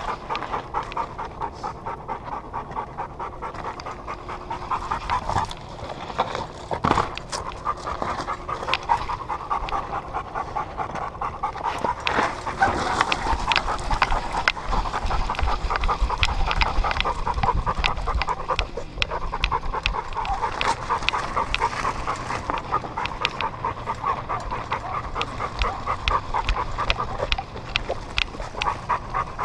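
A dog panting steadily and hard, right at the microphone on its own back.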